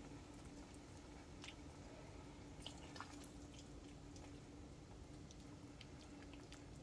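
Faint wet squishes of sauce-coated fettuccine being laid onto a plate, with a few soft clicks, over a low steady hum.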